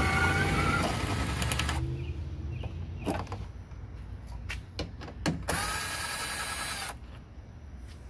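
Cordless drill spinning a 10 mm socket on an extension bar, backing out the bolts that hold a pickup's factory headlight. It runs twice: for about two seconds at the start, and again for about a second and a half from about five and a half seconds in. A few light clicks and clinks of metal come between the runs.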